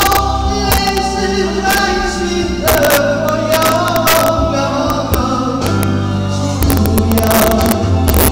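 Man singing long, held melody notes over backing music with a steady bass line and regular drum hits.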